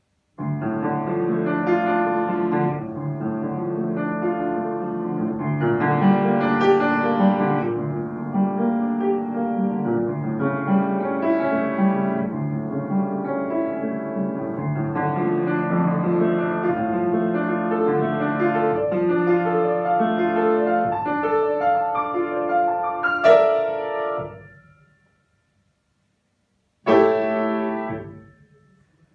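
Solo grand piano playing a continuous run of notes that starts about half a second in and breaks off at about 24 seconds. After a pause of about two seconds, one loud chord is struck and rings away.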